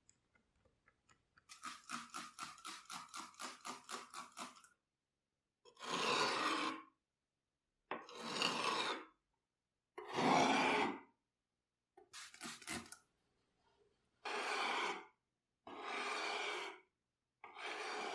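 Steel bayonet blade sharpened on a whetstone: a quick run of short rasping strokes, then long, even scraping strokes about a second each, one every two seconds or so.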